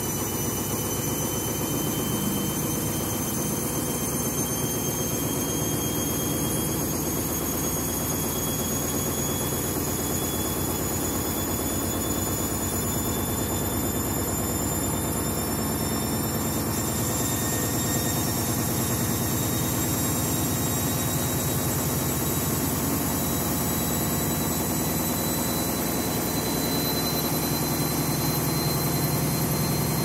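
Candy washing machine on its final spin: the drum spinning steadily, with a high motor whine that slowly climbs in pitch as it speeds up.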